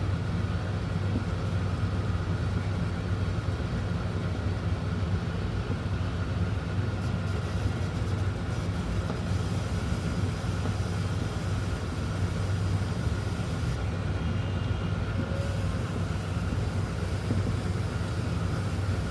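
Steady low mechanical hum and rumble, unchanging in level.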